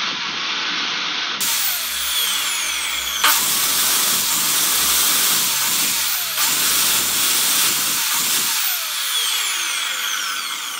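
Bosch chop saw's brushed motor running at full speed, a loud steady whine and rush with no load on the cutting disc. The armature's rebuilt commutator runs without sparking: the repair works.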